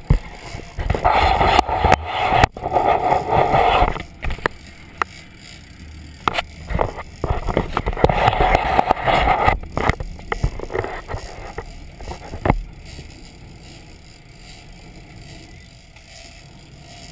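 Wind and sea noise at a sport-fishing boat's stern, with waves breaking close behind: two loud, rough spells of rushing and crackling in the first ten seconds, then a quieter steady low hum of the boat.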